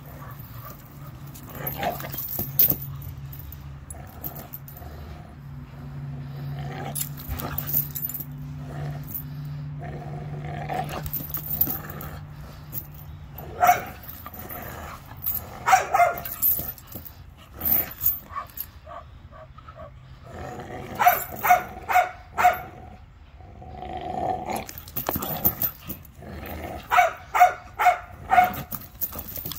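American pit bull terriers growling as they pull on a rope tug toy. A steady low growl runs through the first half, then short growls and barks come in quick runs about two-thirds of the way in and again near the end.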